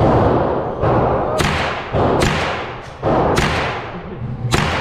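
Semi-automatic rifle fired at a steady pace, several shots about a second apart, each followed by a long echo off the walls of an indoor range.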